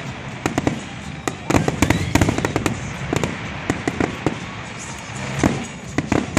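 Fireworks display: aerial shells bursting one after another as sharp bangs and crackles, thickest about one and a half to two and a half seconds in and again near the end.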